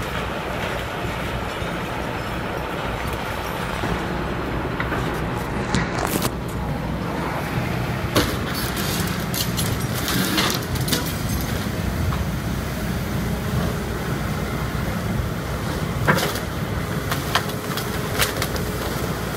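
Hitachi hydraulic excavators' diesel engines running steadily while an excavator bucket breaks up a boat hull, with sharp cracks and crunches of the breaking hull scattered through, several times.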